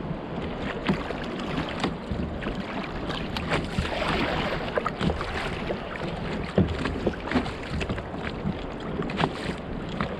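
Water slapping and lapping against a kayak hull, with many short knocks scattered throughout and wind on the microphone; a louder rush of water about four seconds in.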